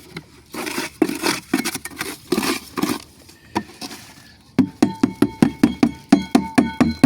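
Scraping and slapping strokes of work in wet concrete, then a fast, even run of sharp metal taps, about five a second, each with a ringing tone, starting a little past halfway.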